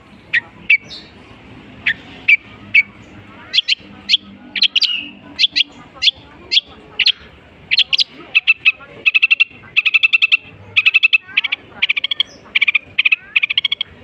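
Long-tailed shrike (cendet) singing a varied, mimicking song. It starts as a string of sharp, separate chirps, then about halfway through turns to fast stuttering trills of repeated notes.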